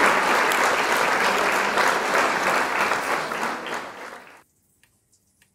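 Applause, fading and then cutting off about four seconds in, followed by a few faint clicks.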